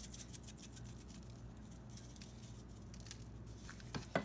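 Hand rubbing dry seasoning into raw pork loin on a metal sheet pan: faint, scratchy rubbing made of many small sounds, with one brief louder sound near the end.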